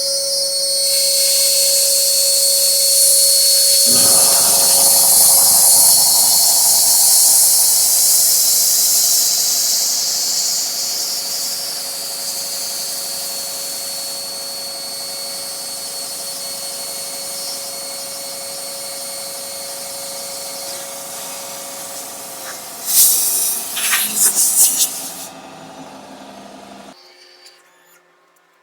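CNC router spindle running with a small cutter milling through a copper-clad circuit board blank, a steady high whine with grinding cutting noise. Near the end there are a few sharp bursts, then the machine winds down and stops.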